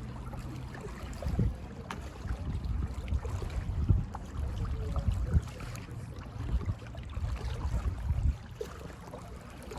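Low rumbling wind buffeting the microphone while paddling an inflatable kayak on a canal, with faint paddle and water sounds.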